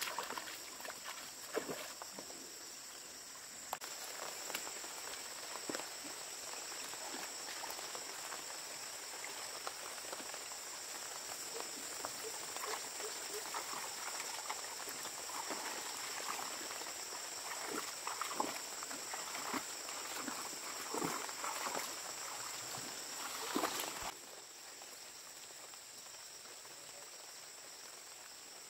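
Intermittent splashing and sloshing of shallow muddy water as someone wades and works through it by hand, over a steady chirring insect chorus. The splashing stops about two-thirds of the way through, leaving the insects.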